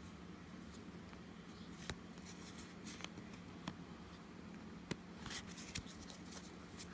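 Faint handling of Pokémon trading cards and their booster-pack wrapper: a few soft clicks and short rustles, over a low steady hum.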